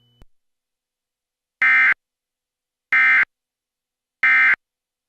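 Three short electronic data bursts, about a third of a second each and a little over a second apart. This is the Emergency Alert System end-of-message (EOM) signal, which marks the close of the alert broadcast.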